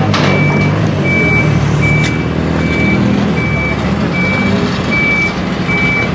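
A truck's reversing alarm beeping steadily, a single high beep about every 0.8 seconds, eight times, over the low, steady running of an idling engine.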